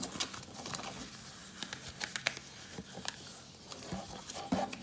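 A sheet of paper being folded in half by hand: rustling and crisp creasing, with short sharp crackles scattered throughout.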